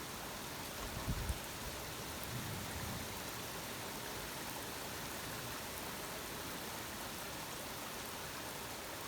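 Steady rain hiss during a thunderstorm, with brief low rumbles of thunder about a second in and again around three seconds.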